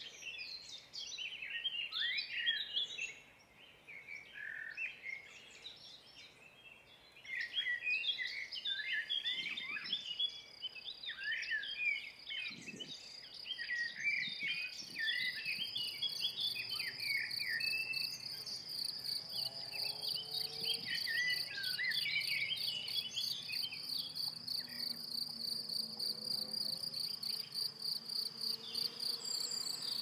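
Meadow crickets trilling, a steady fast-pulsing chirr that sets in about a quarter of the way through, joined about halfway by a second, much higher-pitched insect trill, over a chorus of small birds chirping.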